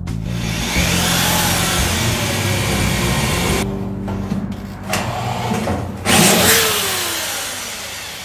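Corded electric drill boring through the sheet-steel bed of a 1976 Chevy C10 with a regular twist bit, the bit struggling to cut. The motor runs in bursts with brief stops, and after a louder burst near the end it spins down with a falling whine.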